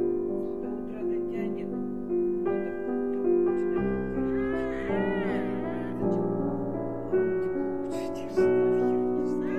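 Soft piano music, over which a newborn puppy gives a few weak, high whimpering cries that rise and fall in pitch about four to five seconds in.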